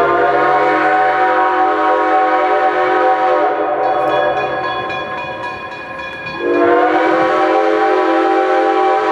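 Steam locomotive's six-chime whistle (a Reading 6-chime on 4-4-0 #98) blowing two long blasts, each sliding up in pitch as the valve opens and then held as a full chord. The first fades about five seconds in; the second starts about six and a half seconds in and is still sounding at the end.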